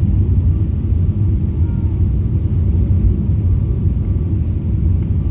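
Airliner cabin noise: a steady low rumble of the engines and airflow, heard from inside the passenger cabin.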